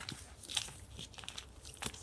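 Paper and stationery being handled for a journal collage: dry crinkling and rustling with a few sharp little clicks and taps.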